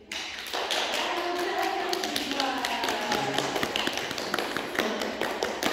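Many quick, irregular light taps and clicks, mixed with people's voices; they start abruptly.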